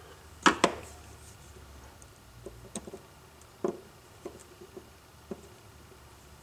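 Small metal clicks and light ticks of a screwdriver setting and turning a tiny screw into a two-stroke trimmer carburetor: two sharp clicks about half a second in, then scattered softer ticks.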